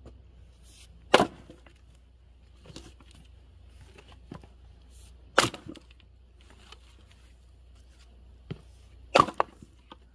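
Axe chopping into an acacia (black locust) firewood log: three heavy, sharp strikes about four seconds apart, with fainter wooden knocks between them, as the log is split along its grain.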